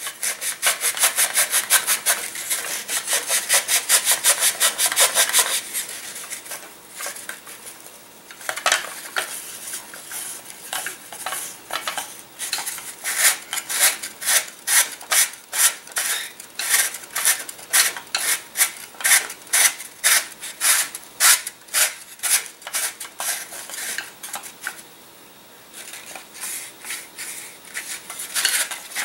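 Sandpaper rolled around a carbon tail boom, rubbing back and forth inside the wooden rear opening of a glider fuselage to sand it out to size. Quick repeated strokes: dense at first, softer for a few seconds, then spaced about two a second, with a brief pause near the end.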